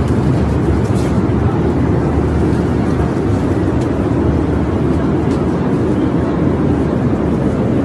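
Steady drone of an airliner cabin: the engines and rushing air heard from inside the passenger cabin.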